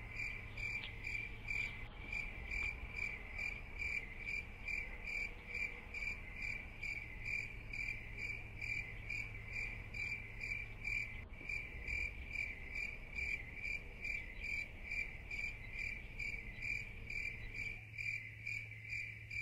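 Crickets chirping at night in an even rhythm, about two high chirps a second, over a faint steady low hum.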